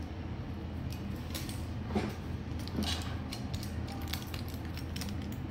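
Light clicks, scrapes and crinkles of a strip of aluminium tape being handled at a repair bench, over a steady low hum.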